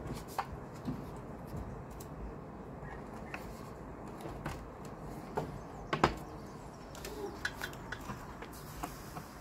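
Scattered light knocks and taps as a cement board strip is handled and pressed into place against the insulated wall beside a window frame.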